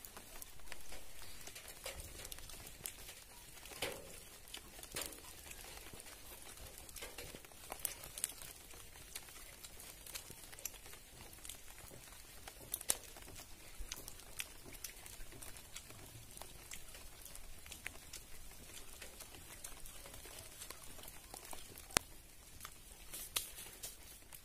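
Faint scattered clicks and light rustling over a low steady hiss, with a few sharper clicks standing out.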